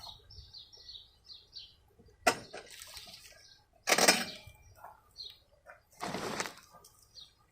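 A bird chirps a quick run of about eight high notes in the first second and a half. Then come handling noises: a sharp knock about two seconds in and two short bursts of rustling noise, the louder about four seconds in.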